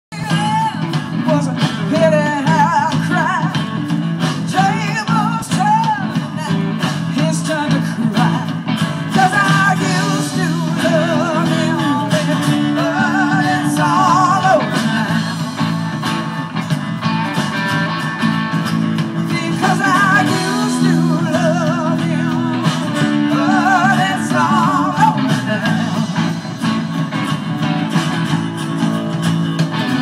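A live rock-and-blues band playing, with a woman singing the lead vocal with vibrato over electric guitar and bass. It is heard from the audience through a phone's microphone.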